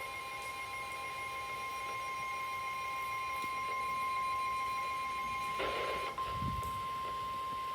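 NOAA Weather Radio 1050 Hz warning alarm tone, a single steady high tone received on a Midland WR-300 weather radio, signalling that a warning message is about to follow. A brief noise sounds over it about five and a half seconds in.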